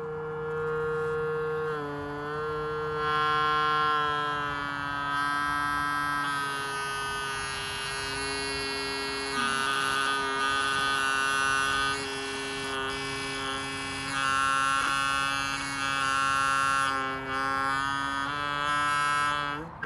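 Audio feedback from a handheld microphone held against a small portable amplifier: several steady tones sounding at once, stepping to new pitches every few seconds.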